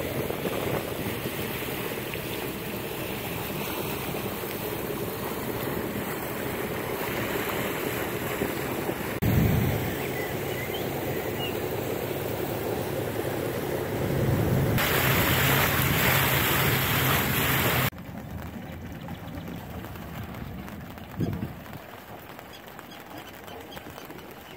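Water rushing past the bow of a motoring sailboat, with wind buffeting the phone's microphone. A low, steady hum runs through the middle. About three quarters of the way through, the rush drops suddenly to a quieter level.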